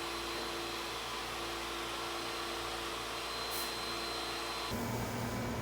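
Steady whirring of workshop machinery with a hiss over it and a short burst of higher hiss about three and a half seconds in; near the end it switches abruptly to a different, lower steady hum.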